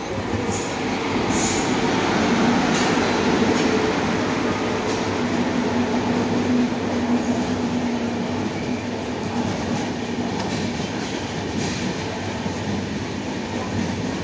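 Passenger train running past along a station platform: the rumble and rail clatter of its coaches' wheels, growing louder over the first couple of seconds and then holding steady, with a steady low tone for a few seconds in the middle.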